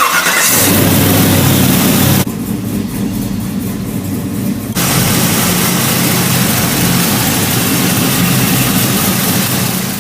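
1968 Buick engine running with its replacement alternator fitted, a steady low hum with a brief change in tone about two seconds in and again near five seconds.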